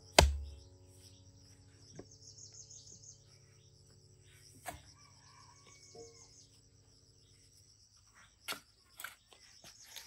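A long-handled digging tool striking a bank of clay and loose rock: one heavy thud right at the start, a second strike about halfway, lighter knocks between, and a few sharp clicks of stone near the end. Insects chirr steadily behind it.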